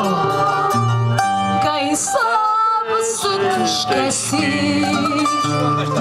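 A woman singing fado into a microphone, accompanied by a Portuguese guitar and a viola de fado.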